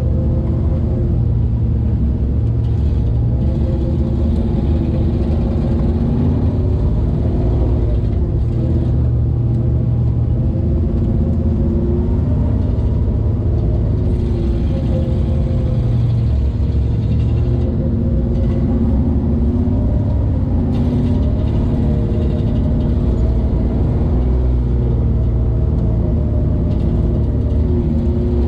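Engine of a four-wheel-drive vehicle running at low revs as it crawls up slickrock, its note rising and falling a little with the throttle.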